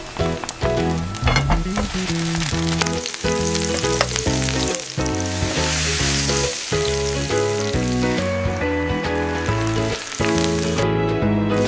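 Food sizzling as it fries in a pan, the hiss strongest midway, over background music.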